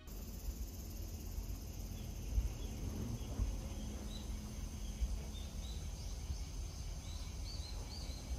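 Outdoor garden ambience: small birds chirping in short, high notes that come more often toward the end, over a steady high insect drone and a low rumbling noise.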